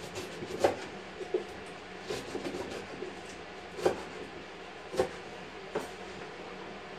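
Kitchen knife chopping fresh mallow leaves on a wooden cutting board: irregular knocks of the blade striking the board, about six sharper ones with softer taps between.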